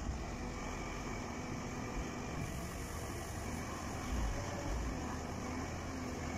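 Mercedes-Benz tipper truck's diesel engine running steadily while the hydraulic ram raises the trailer bed and a load of crushed stone slides out.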